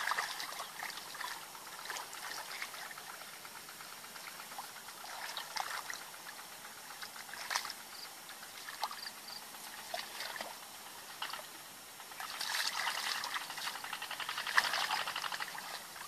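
Shallow muddy water sloshing and trickling as hands grope through it for fish, with scattered small splashes. The splashing gets louder for a few seconds near the end.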